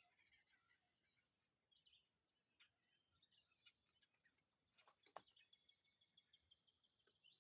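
Small songbirds chirping and twittering faintly, with a rapid, even trill through the second half and a single sharp click about five seconds in.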